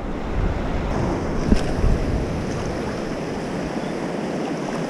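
Ocean surf washing onto the beach, a steady rush of noise, with wind rumbling on the microphone that eases after about three seconds.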